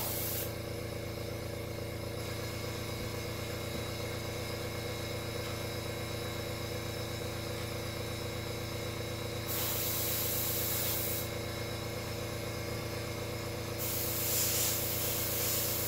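An airbrush spraying paint through a flame stencil in short hissing bursts: one about ten seconds in and another near the end. Under it the air compressor's motor hums steadily.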